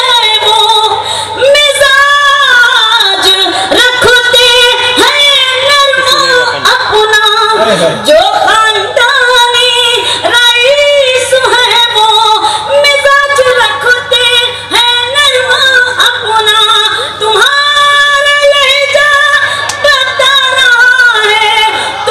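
A woman singing an Urdu ghazal couplet in tarannum style. Her long held notes bend and glide in pitch, and she dips low about eight seconds in.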